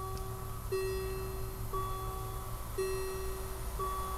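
German level crossing warning bell ringing, alternating a lower and a higher ringing stroke about once a second, over a low steady rumble.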